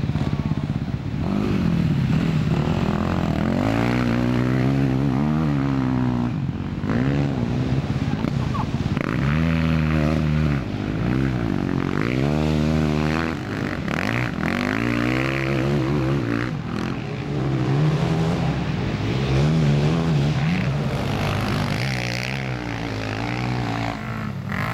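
Motocross bike engines on a race track, revving up and down over and over, the pitch climbing and dropping every second or two as the riders open and close the throttle.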